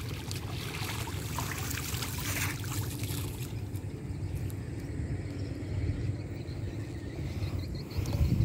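Light splashing and trickling of water as a thrown cast net settles and sinks, fading after about three seconds, over a steady low rumble. A few knocks near the end.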